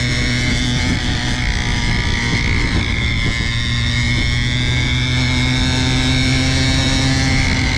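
Mini pocket dirt bike's 49cc two-stroke single-cylinder engine running at a fairly steady speed, giving a continuous high-pitched whine over a low rumble that wavers only a little in pitch.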